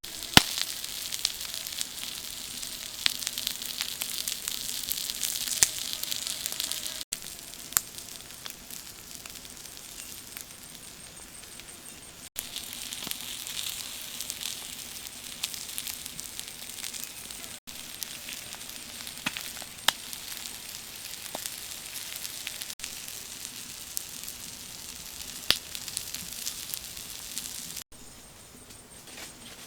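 Fish eggs sizzling and crackling as they cook over a fire: a steady frying hiss with small sharp pops, breaking off briefly every five seconds or so.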